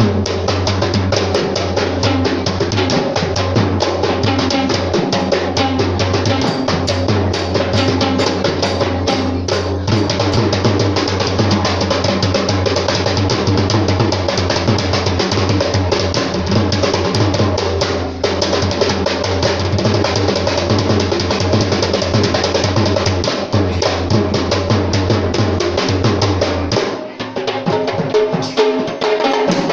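Sri Lankan traditional drums played together in a fast, dense rhythm of rapid hand strokes, as rival drum traditions play against each other. About 27 seconds in, the deep drum drops out and lighter drumming carries on.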